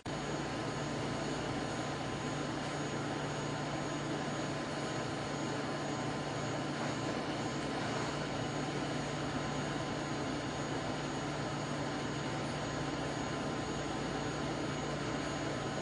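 Metcal HCT2-200 hot air pencil blowing a steady stream of hot air from its nozzle onto a component to reflow the solder: an even hiss with a low hum and a faint high tone.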